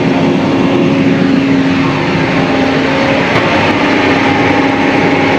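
John Deere 4830 self-propelled sprayer running steadily under way: a constant engine hum with a steady low tone.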